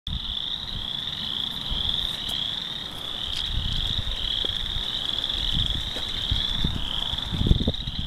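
A dense chorus of frogs calling from the marsh: a continuous high trilling made of short rising phrases, overlapping and repeating more than once a second. Beneath it runs a low rumble, with a few thumps near the end as the bicycle rolls onto the wooden bridge.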